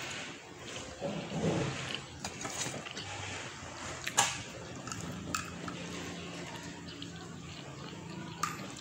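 Eating at a table: chewing a bread roll, a few sharp knocks of things set down on the table (the loudest about 4 seconds in), and a sip from a coffee mug near the end. A faint low hum runs under the second half.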